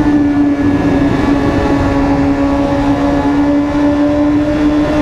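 BMW S1000RR inline-four sport bike engine running at a steady, fairly high speed, its tone holding almost level.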